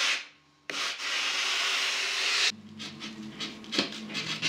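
Sanding of a foam surfboard blank during shaping: a steady rubbing noise that stops for about half a second near the start and resumes, then about two and a half seconds in turns into quieter, separate back-and-forth strokes, a little over two a second.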